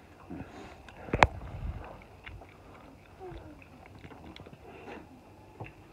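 Tableware clatter at a meal: scattered light clicks of a fork and plastic takeaway containers, with one sharp knock about a second in.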